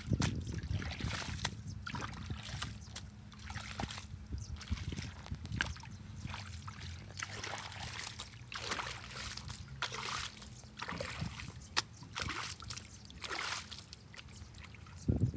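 Muddy water flowing and sloshing out of a culvert pipe, with irregular splashes as a rake is dragged through the shallow water at its mouth.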